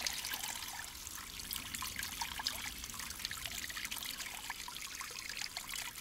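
A thin stream of water trickling and dribbling at a well, with many small drips. It feeds a little water-driven contraption that is turning only very slowly.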